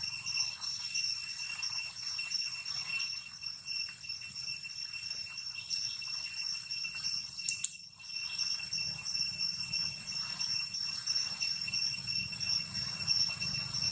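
Steady high-pitched insect chorus, a fast even pulsing trill at fixed pitches, with a faint low background rumble. A brief click and dip in level comes about eight seconds in.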